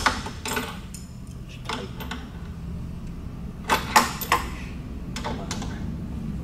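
Sharp clicks and knocks of hand-fitted parts on the metal print-chain mandrel as a spacer is pushed through onto its mounting bolt: one at the start, another a little later, a quick run of three about four seconds in and two more near the end. A steady low hum runs underneath.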